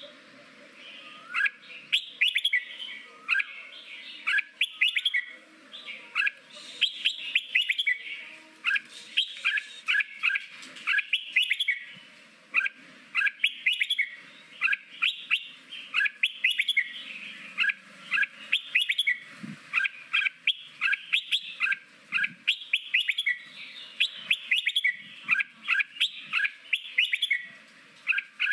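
Red-whiskered bulbul singing its wild-type 'forest voice' song: quick phrases of short, sharp whistled notes, one after another with brief pauses between.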